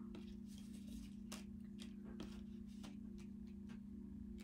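Quiet room tone: a steady low hum with about a dozen faint, scattered clicks and taps.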